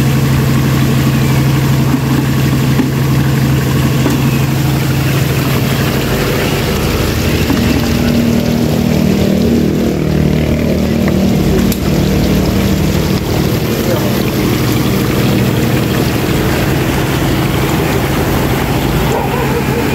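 An engine running steadily at idle, an even low hum throughout, its tone shifting slightly partway through.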